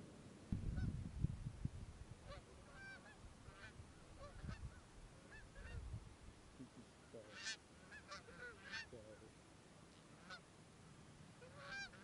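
A flock of Canada geese honking as it flies in, short calls coming more often as it goes, thickest about seven to nine seconds in. Low rumbling thumps in the first couple of seconds are the loudest thing.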